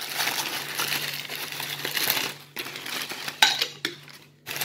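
Crumpled kraft wrapping paper rustling and crinkling as a stack of glass cups is lifted out of it, then a single sharp clink of the glass cups about three and a half seconds in.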